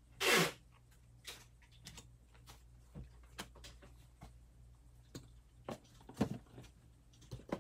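Light clicks and taps of hands handling plastic miniature figures and cardboard booster boxes on a tabletop, with a short rustle just after the start, over a faint steady hum.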